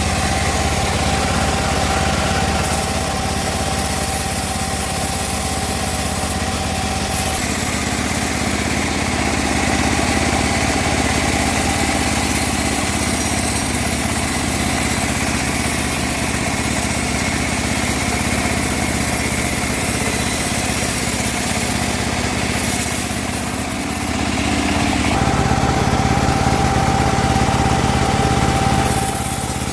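Engine of a homemade bandsaw mill running steadily, its sound shifting slightly a few times.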